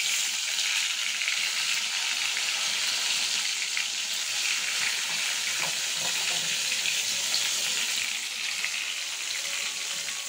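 Slices of spice-rubbed brinjal and pumpkin shallow-frying in oil in an iron kadai: a steady sizzle full of small crackles and pops, easing slightly near the end.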